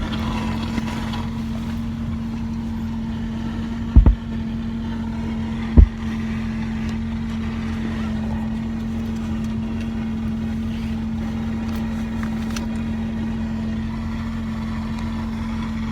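Ford Mustang idling, heard from inside the closed car, a steady low hum. Two short, loud thumps come about four and six seconds in.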